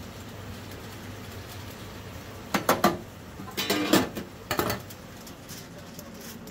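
Metal tongs clinking and clattering against a stainless steel tray: three quick clicks about two and a half seconds in, a longer clatter around four seconds, and a last short one just after, over a steady low hum.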